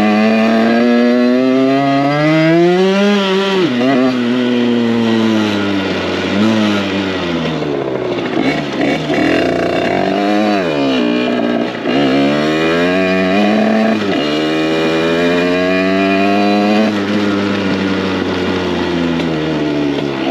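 Derbi 50cc two-stroke single with a 70cc Metrakit Pro Race kit and KRM silencer, revving up and dropping off again and again: its pitch climbs over a few seconds, falls away, then climbs again. It is running on an open intake with no air filter and its original ignition, which the rider says makes it struggle to pull in the wet.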